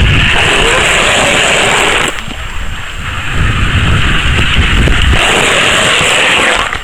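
Skateboard wheels rolling fast over a rough paved path: a loud, steady rolling roar with a low rumble. It eases for about a second starting two seconds in, then picks up again.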